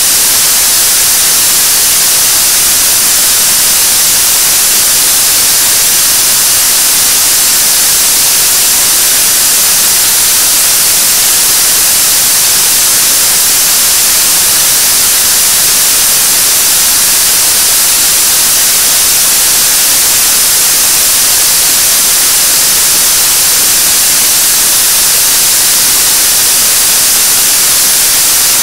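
Korean launch vehicle's 7-tonne-class liquid-oxygen/kerosene third-stage rocket engine in a steady-state hot-fire burn: a loud, unbroken rushing hiss, strongest in the high range, with no change in pitch or level.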